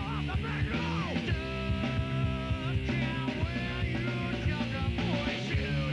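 Rock music with a steady drum beat and held melody notes.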